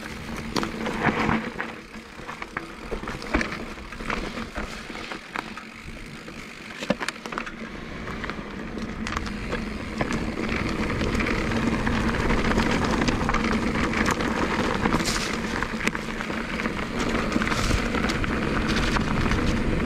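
Canyon Torque:ON electric mountain bike riding down a dirt forest trail: tyres rolling over earth and leaves, with frequent clicks and rattles from the bike. A rushing noise grows louder from about eight seconds in.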